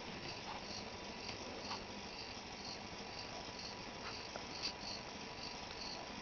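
Hobby servos of a pan-and-tilt set stepping round a circle, each small move giving a short high-pitched buzz, about three a second, over a faint steady tone, with a few light clicks.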